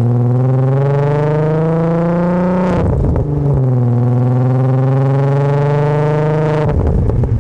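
Volkswagen VR6 exhaust under hard acceleration, close-miked: the engine note climbs steadily in pitch, drops at an upshift about three seconds in, climbs again, then breaks for a second upshift near the end.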